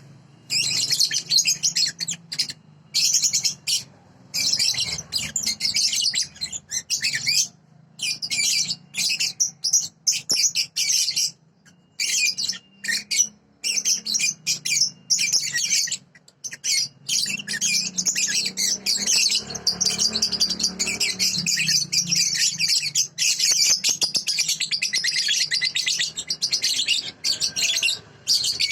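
A young songbird singing a long, rapid run of high chirps and trills in phrases with short pauses: a masteran song used to train young cage birds.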